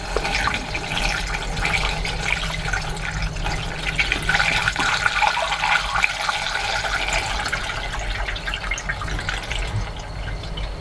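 Seafoam engine treatment being poured from its bottle into the engine's crankcase through the oil filler, a continuous pour of liquid over a steady low hum.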